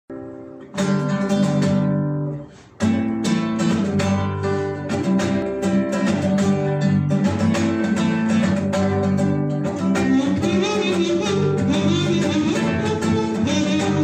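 Acoustic guitar strumming rhythmic chords as a song intro, with a brief break about two seconds in before it resumes. From about ten seconds in, a wavering melody line with vibrato joins above the guitar.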